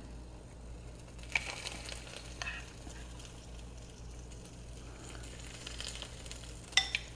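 Chaffle batter sizzling faintly on the hot plates of mini waffle makers while a metal spoon scrapes and spreads batter, with a few light spoon clicks, the sharpest near the end.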